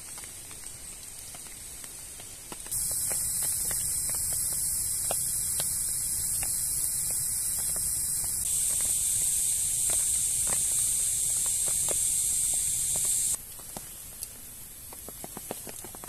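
Moisture and sap boiling out of the cut end of a burning log: a steady, high steam hiss with the odd crackle. It starts about three seconds in and cuts off sharply about ten seconds later.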